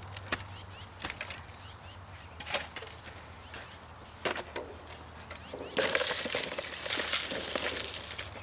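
A shovel working compost into a plastic nursery pot. There are a few sharp separate scrapes and knocks, then about five and a half seconds in a longer gritty scraping and rattling as the compost is dug and tipped in.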